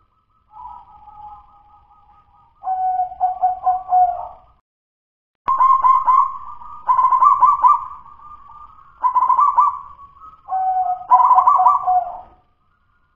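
Local zebda dove (perkutut) cooing in its cage: a quiet first phrase, then a run of louder cooing phrases, each broken into quick stuttering notes. The owner describes this song as still 'dudut-nutut', not yet smooth and full ('belum los').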